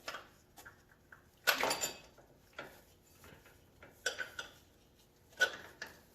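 Metal hand tools clinking and clattering against metal under a vehicle during tightening work. There are a few separate sharp clanks with brief ringing, the loudest about a second and a half in and more at about four and five and a half seconds.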